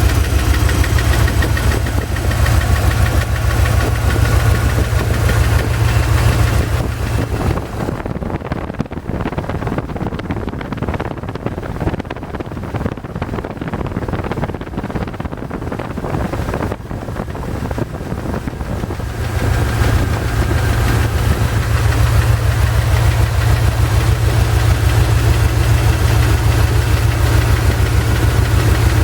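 Chevy ZZ4 350 small-block V8 running steadily with a fast knocking or ticking, which the owner hears from the driver's side and suspects is piston slap or a spun bearing, since a valve lash adjustment did not cure it. For about ten seconds in the middle the sound turns duller and quieter, then comes back as before.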